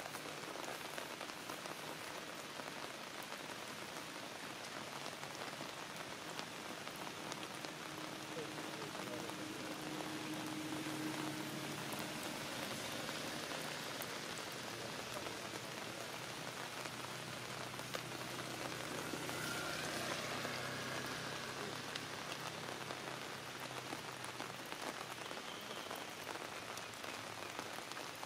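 Steady rain falling: an even hiss with no break.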